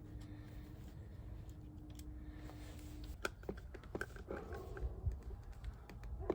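Small scattered clicks and ticks of doorbell wires being fastened under a Ring video doorbell's terminal screws, mostly in the second half. A faint steady hum runs through the first half and stops about three seconds in.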